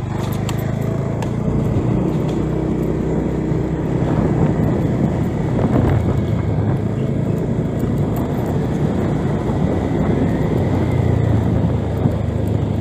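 Motor scooter's small engine running steadily while riding, with road and wind noise.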